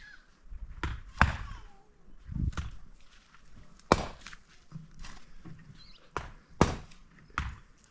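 A series of sharp knocks and thuds at irregular intervals, about seven or eight of them, loudest around four seconds and six and a half seconds in.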